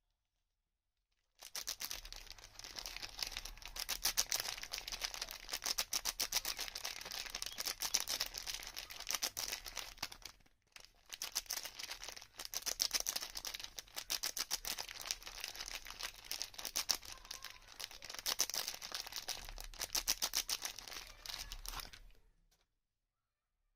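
Soap packaging being unwrapped and torn open close to the microphone: dense, rapid crinkling and crackling of the wrapper, with a brief pause about halfway through.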